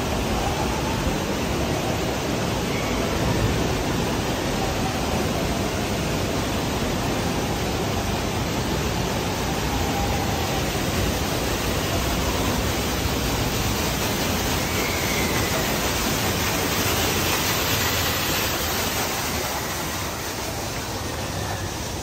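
Steady rushing of water falling down the volcano, heard as an even hiss, easing a little near the end.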